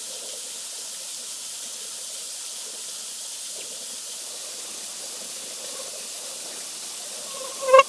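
Steady hiss of a waterfall's rushing water. Near the end a brief, loud pitched sound with a ringing tone cuts in.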